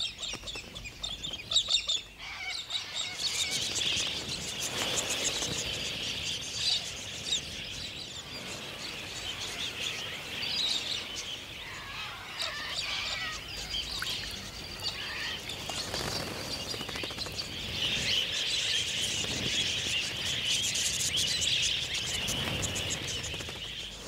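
A flock of parrots chattering: a dense, unbroken mass of high chirps and calls, a little louder near the end.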